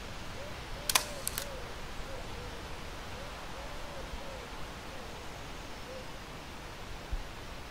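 Leica M8.2 rangefinder camera shutter firing about a second in, followed by two quick clicks as the shutter recocks, over a steady outdoor hiss with faint low calls.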